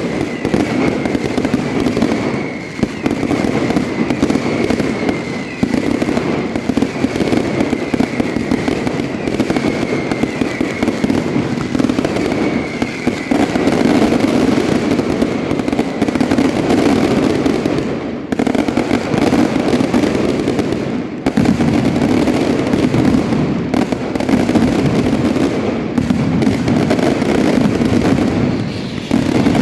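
A castillo fireworks display in full barrage: a dense, continuous stream of firework bursts and crackle. A thin whistle sounds again and again through the first half, each time falling slightly in pitch.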